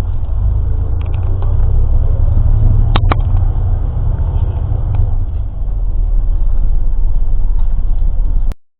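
Low, steady rumble of a moving bus's engine and road noise heard from inside the cabin, with one short click about three seconds in. The sound cuts out abruptly near the end.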